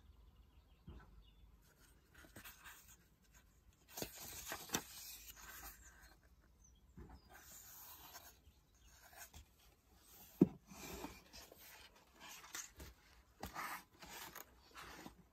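Paper pages of a hardback book being turned and leafed through by hand, rustling and rubbing in short irregular bursts. A single sharp knock about ten seconds in.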